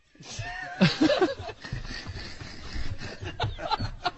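Stifled laughter, snickering and chuckling in short broken bursts.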